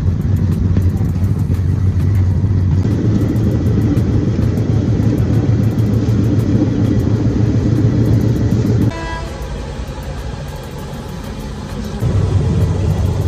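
Steady loud rumble of a moving passenger train heard from inside a carriage with open windows: wheels on the track and wind. About nine seconds in it drops suddenly to a quieter stretch with a brief pitched tone, and the loud rumble comes back about three seconds later.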